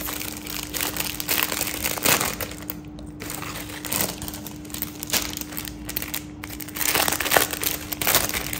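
Plastic jewellery pouches being handled and opened, crinkling and rustling irregularly, in louder spells about two seconds in and again near the end.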